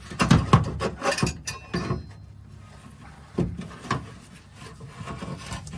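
Clunks, knocks and scraping as a replacement spare tire hoist is handled and pushed into its mounting, with several sharp knocks in the first two seconds and a few more spread through the rest.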